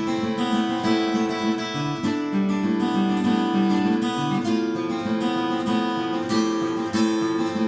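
Background music: strummed acoustic guitar with steady chords.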